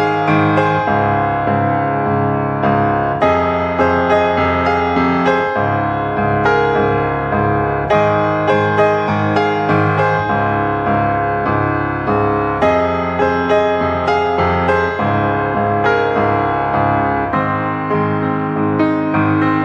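Background piano music, a steady stream of notes.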